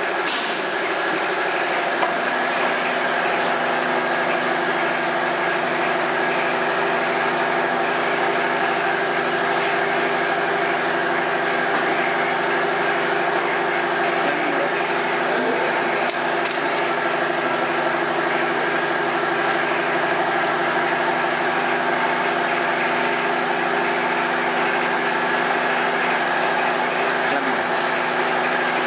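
Steady hum of a magnetic particle inspection machine running, with several steady tones and a couple of faint clicks.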